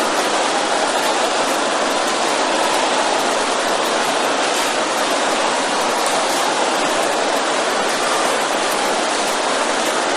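Large congregation praying aloud all at once, a steady dense roar of many voices with no single voice standing out.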